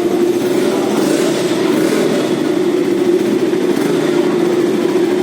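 KTM RC 200's single-cylinder four-stroke engine running steadily through its stock exhaust, holding an even note.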